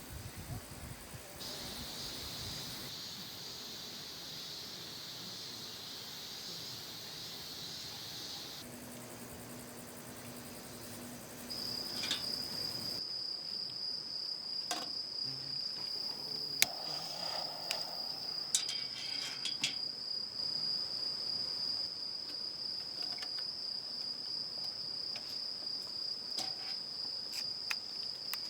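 Insects calling: a high, even buzz in the first part, then about twelve seconds in a single steady, high-pitched trill that carries on unbroken. Scattered light clicks and clinks sound over it in the second half.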